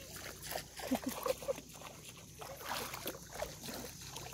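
Legs wading through shallow seawater, the water sloshing and splashing in uneven strokes with each step.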